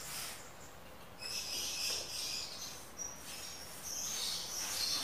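Flat paintbrush swishing in repeated strokes, brushing a thinned base coat of oil paint onto a plywood panel. High chirping sounds over it, loudest about a second in and again near the end.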